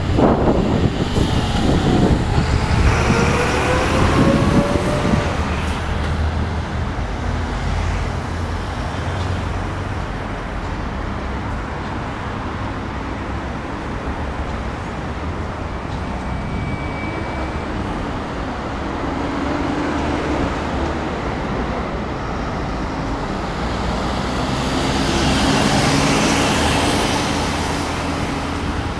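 Urban road traffic: a motor vehicle passes close by in the first few seconds, its engine note sliding, then steady traffic noise, and another vehicle swells past near the end.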